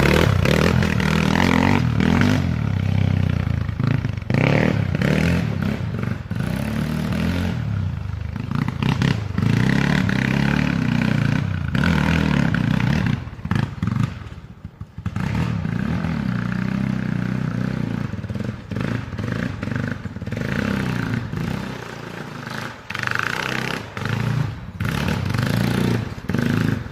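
Yamaha Warrior 350 ATV's single-cylinder four-stroke engine running under changing throttle during off-road riding. It briefly drops away about halfway through, then picks up again.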